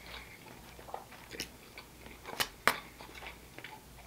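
Close-miked chewing and wet mouth sounds of a person eating a mouthful of lamb gyro meat and rice, with scattered small clicks and two sharper clicks a fraction of a second apart about two and a half seconds in.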